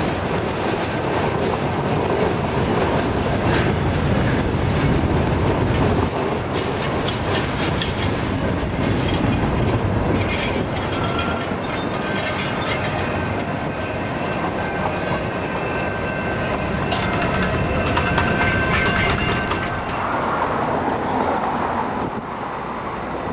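Freight train's covered hopper cars rolling past, with a steady rumble and wheels clacking over rail joints. Thin high wheel squeal comes and goes in the middle and later part.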